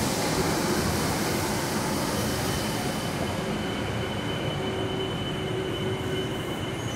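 Old-stock metro train braking into an underground station, its cars rolling past with a steady rush of wheel and running noise that eases slightly as it slows. A faint thin squeal comes in about halfway.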